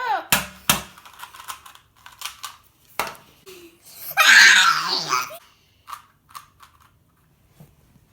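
A person laughing in one loud, breathy outburst of about a second midway, amid scattered sharp clicks and knocks.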